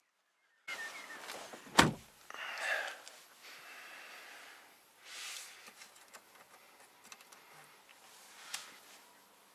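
An Audi Q3's door slamming shut once about two seconds in, heard from inside the car. Quiet steady cabin noise follows as the car moves off.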